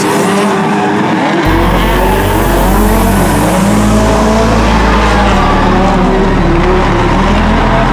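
A drift car running hard with its tyres squealing, over background music whose deep bass line comes in about a second and a half in.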